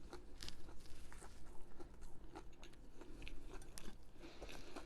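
A person chewing food close to the microphone, with irregular small crunchy clicks from biting and mouth sounds.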